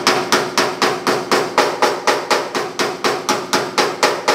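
Ball-peen hammer rapidly striking the sheet steel of a 1950 Chevy truck cab's lower panel, about four blows a second, with the panel ringing faintly under the blows. The rust-holed, puckered metal around the holes is being banged flat so it can be ground and filled. The hammering stops just before the end.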